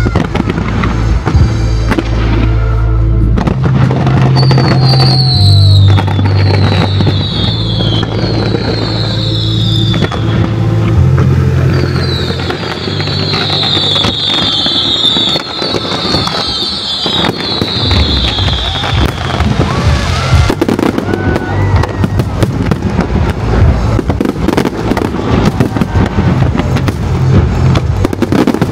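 Fireworks bursting over loud show music with a heavy bass line. In the last third the bangs and crackles come thick and fast.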